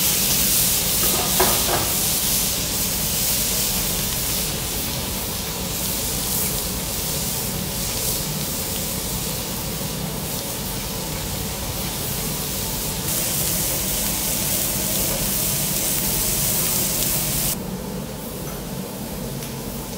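Steak sizzling on a teppanyaki iron griddle: a steady hiss, with a few light clicks about a second and a half in. The sizzle drops off suddenly near the end.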